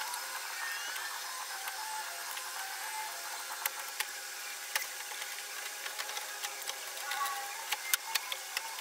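Scattered sharp clicks and light knocks of plastic and metal car front-end parts being handled and worked loose, most of them in the second half, over a steady background hum.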